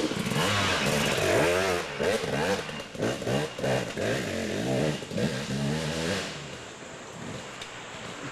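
Dirt bike engine revving up and down over and over, its pitch rising and falling, then dropping away quieter about six seconds in.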